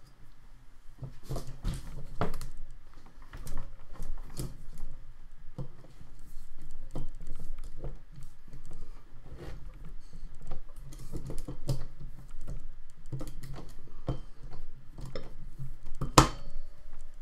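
Irregular metallic clicks and light knocks from the camshafts and timing chain of an Audi 2.0T cylinder head, worked by hand and turned a little at a time to seat the exhaust cam adjuster's locating pin. One sharper click comes near the end.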